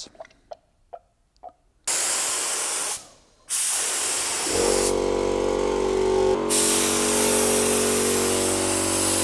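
A compressed-air gravity-feed spray gun sprays PVA mold release. After a few faint clicks, a loud hiss starts about two seconds in, breaks off briefly, then runs on steadily. A steady machine hum joins under it about halfway through.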